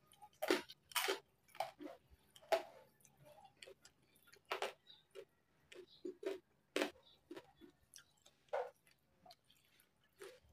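Close-up mouth sounds of someone eating crispy deep-fried pork knuckle: irregular crunches and wet chewing and lip-smacking clicks.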